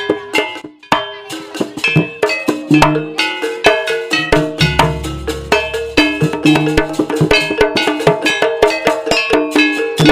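Instrumental gamelan-style folk accompaniment: rapid, ringing strikes on metal percussion over drum beats.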